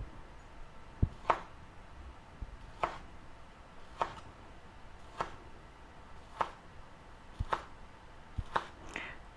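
Kitchen knife slicing small smoked sausage links on a cutting board, with a short tap of the blade on the board at each cut, about once a second.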